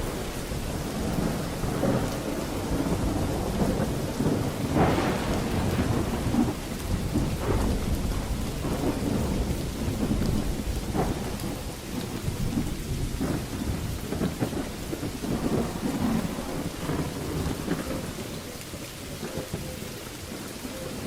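Thunderstorm: rolling thunder rumbles over steady heavy rain, with sharper crackling peals about five seconds in and again a few seconds later. The rumble eases off near the end.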